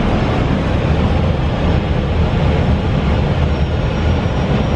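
Steady rumble of airflow and engines inside an Airbus A320 flight deck on final approach.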